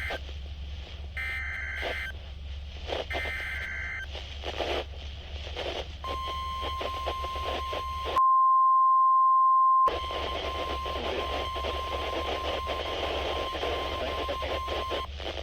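A Zhiwhis weather radio receiving an EAS activation over static: the SAME header data bursts, a two-tone digital screech, repeat about a second apart, then about six seconds in the steady 1050 Hz NOAA Weather Radio warning alarm tone sounds, much louder and clean for a couple of seconds in the middle, and stops just before the end. It signals an incoming Excessive Heat Warning.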